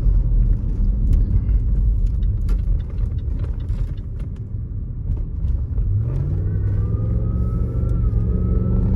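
Range Rover Sport L320's supercharged V8 on the move: a steady low rumble, then about six seconds in the engine note rises as it accelerates, with a thin supercharger whine over it, louder than usual with the engine cover removed.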